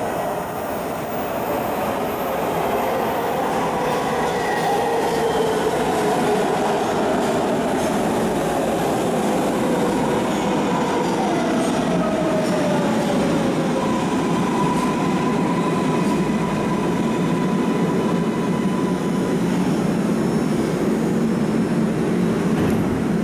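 MARTA rapid-transit train pulling into an underground station: a whine that falls slowly in pitch as the train slows, over the steady rumble of wheels on the rails. Past the middle, a high steady tone sounds for several seconds.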